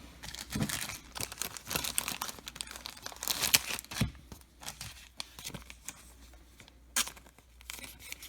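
Foil wrapper of a trading-card pack crinkling and tearing, with a single sharp click near the end.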